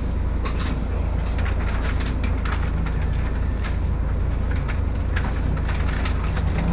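Cabin sound of a Volvo B7TL double-decker bus under way: a steady low engine and road rumble with frequent sharp rattles and clicks from the bodywork and fittings.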